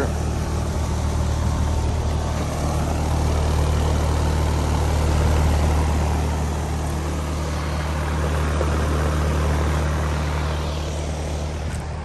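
Outdoor heat pump condensing units running: a steady low hum from the compressor with the rushing air of the condenser fan. It eases slightly near the end.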